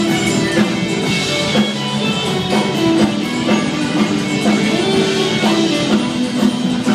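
Live band playing an instrumental passage: electric and acoustic guitars over a drum kit.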